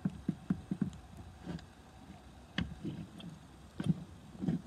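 Wilesco D16 toy steam engine being turned over by hand while held up by a hydraulic lock: a quick run of about five short knocks in the first second, then single knocks every second or so.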